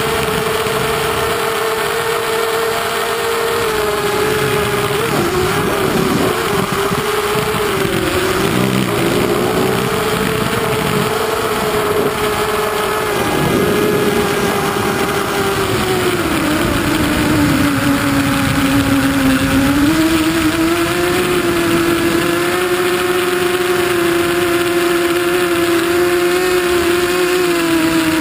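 Hexacopter's six electric motors and propellers whining, heard from the camera on board. The pitch sags and climbs with the throttle, lowest a little past the middle.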